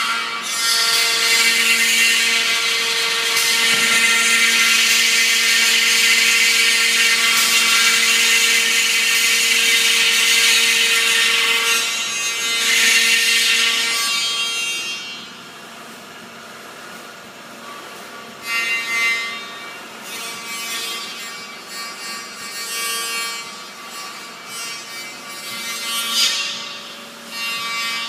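Emmegi Phantomatic T4 CNC machining centre's spindle cutting a profile: loud, steady cutting for about fifteen seconds, then the spindle running quieter with several short cuts.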